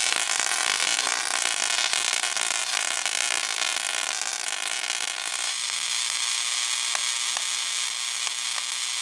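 Tesla coil firing, its streamers arcing from the toroid. A loud, steady, pitched buzz starts suddenly and shifts in tone a little over halfway through, with a few sharp crackles.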